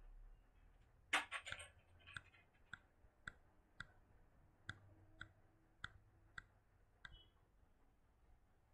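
Faint clicks from working a computer: a quick cluster of clicks about a second in, then single sharp clicks about two a second until about seven seconds in.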